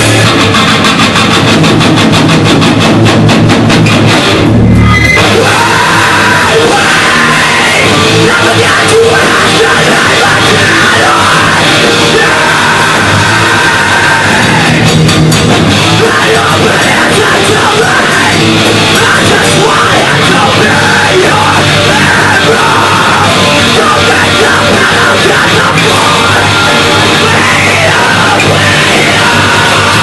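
Rock band playing loud live post-hardcore: distorted guitars, bass guitar and drum kit, with fast, even drum hits at first. The band stops for a moment about four and a half seconds in, leaving a low bass note, then crashes back in full.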